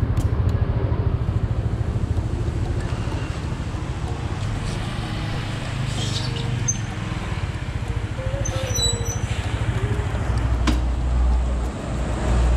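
Small motor scooter engine running steadily with a low, even putter, with a few faint high chirps over it.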